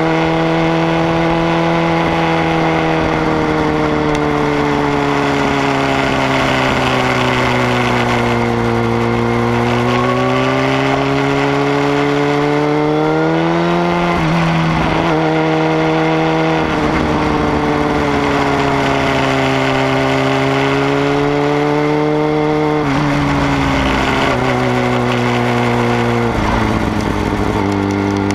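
Sport motorcycle engine heard from the bike's own tail while riding through curves, its pitch slowly falling and rising with the throttle. The pitch breaks off suddenly a little past halfway and twice near the end, as gears are shifted.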